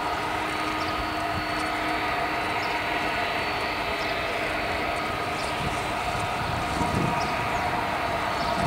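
Jet engines of a TAP Air Portugal Airbus airliner running at taxi power: a steady rushing noise with a fixed high whine, with louder uneven rumbling near the end.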